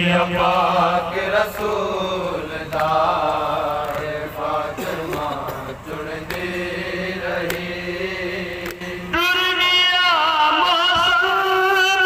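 Male voices chanting a noha, a Shia mourning lament, over a steady low drone. About nine seconds in, the drone drops out and a louder lead voice takes over with a wavering, ornamented melody.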